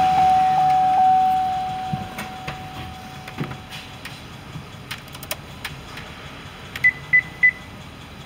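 An electronic chime tone in the 2003 Chevrolet Avalanche's cab sounds once and fades slowly over about four seconds, with light handling clicks. Near the end come three short, higher beeps in quick succession.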